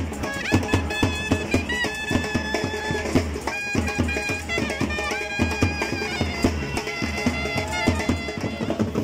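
Live wedding band music: a melody played on reed pipes in long held notes that step from pitch to pitch, over a quick, regular drumbeat.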